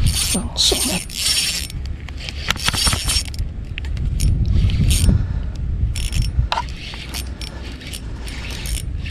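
Small spinning reel (Ryobi Smurfs 500) being cranked, its gears and line roller whirring in short irregular spells as line is wound in against a bent ultralight rod.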